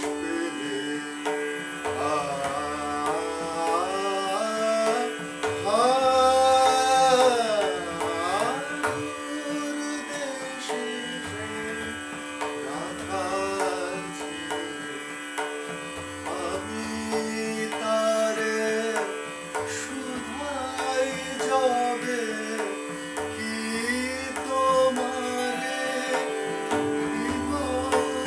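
Male voice singing a Bengali song in raga Brindabani Sarang, with sliding, ornamented phrases, to tabla keeping a dadra rhythm with deep bass-drum strokes. A steady drone holds one pitch underneath.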